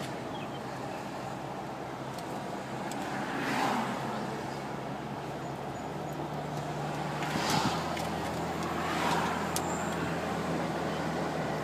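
Inside a moving car: a steady engine hum and tyre and road noise, with three brief swells of louder road noise, about three and a half, seven and a half and nine seconds in.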